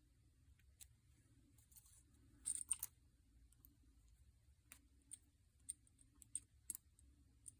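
Faint scattered metal clicks and ticks from a broken pick probing the pins of a 7-pin tubular lock core, under tension from a wiper-blade tension tool, with a short scraping rattle about two and a half seconds in.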